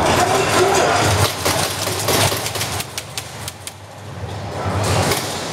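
Irregular sharp clicks and snaps of airsoft guns firing and BBs striking hard surfaces, heavy for a stretch about a second in and again past the middle.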